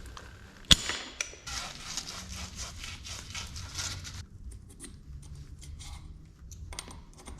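Hand work on copper pipe and fittings: a sharp click, then a couple of seconds of quick scraping or rubbing strokes, then scattered small clicks and taps.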